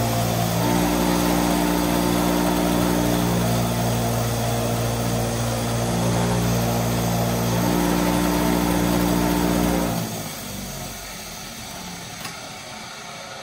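A small electric power tool motor running steadily, then stopping about ten seconds in.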